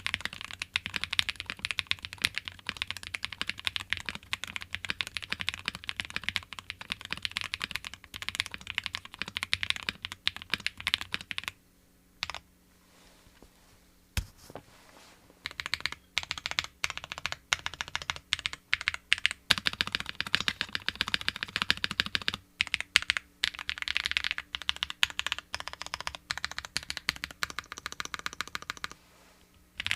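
Custom gasket-mount Think6.5 v2 mechanical keyboard with a PE plate, plate foam only, lubed Lavender/Panghu v6 frankenswitches and GMK keycaps being typed on: a fast, continuous patter of key clacks. The typing stops for about four seconds near the middle, broken only by a couple of single key presses, then resumes and stops again just before the end.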